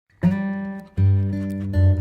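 Music: plucked string chords, struck about a quarter second in and again about a second in, each left to ring.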